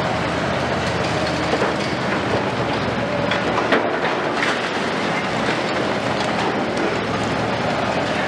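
Liebherr 974 and Hitachi 870 high-reach demolition excavators running steadily, with concrete being crunched and debris clattering down in scattered knocks and crackles; a sharper knock comes a little before the middle.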